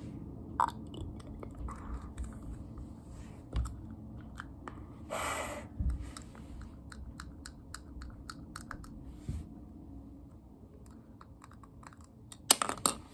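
Plastic vampire fangs clicking in the mouth and tapped with a long fake fingernail: a run of small sharp clicks and taps with wet mouth sounds, a short hiss about five seconds in, and a cluster of louder clicks near the end.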